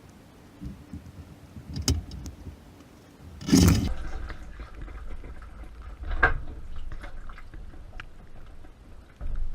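A few scattered knocks and clunks inside a dishwasher, the loudest a short crash about three and a half seconds in.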